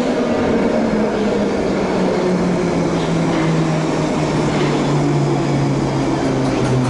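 London Underground Bakerloo line train (1972 Stock) pulling into the platform, with a loud steady rumble of wheels on rail. A low motor whine falls in pitch as the train slows to a stop.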